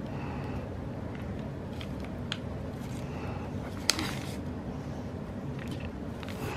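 Faint desk handling of planner stickers and paper: a few light ticks and taps, the sharpest about four seconds in, over a steady low hum.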